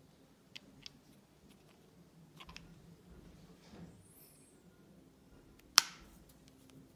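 Small steel parts of a Zexel diesel injection pump clicking as a barrel holder is fitted into the pump housing by hand: a few light clicks, then one sharp, louder click near the end.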